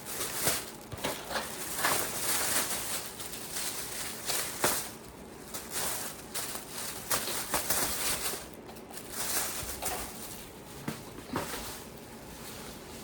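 Rustling and crinkling of a plastic shopping bag and firework packaging being handled, with several sharp knocks as boxes are set down or picked up.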